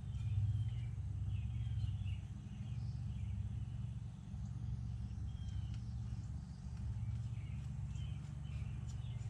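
A steady low hum with faint, scattered bird chirps over it.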